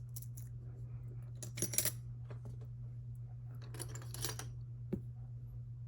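Small metal parts of an EVVA EPS slider lock clinking and clicking as the opened lock is handled, in two short clusters and then one last click.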